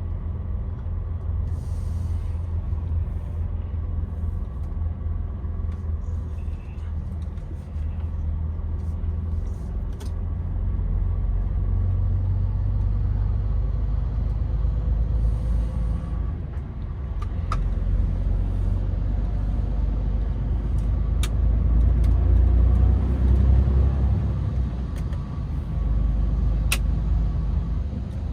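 DAF XF truck engine and road rumble heard inside the cab while driving, low and steady, swelling louder twice. A few sharp clicks are scattered through it.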